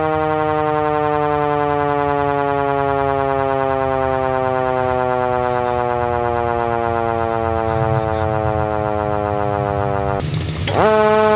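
A siren sounding one long note with many overtones, its pitch slowly falling. About ten seconds in, a louder, raspier tone cuts in with a quick upward sweep and then holds steady.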